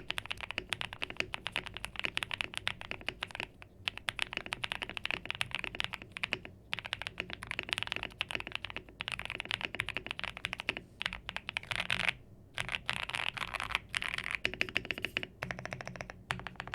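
Fast typing on a mechanical keyboard with NovelKeys Cream+ linear switches fitted with titanium stem inserts: a rapid run of keystroke clacks, broken by a few short pauses.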